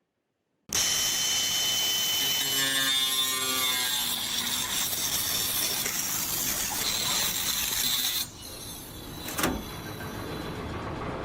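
A power tool running loud and hissy, starting abruptly and stopping about eight seconds in; a single sharp click follows a second later.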